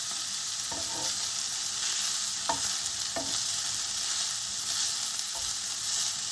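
Vegan mince sizzling as it fries in a pan, a steady hiss with a few light knocks as it is stirred.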